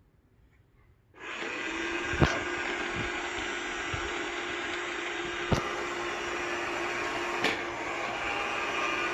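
iSweep S320 robot vacuum cleaner switching on about a second in and then running with a steady whir, with a few sharp knocks along the way.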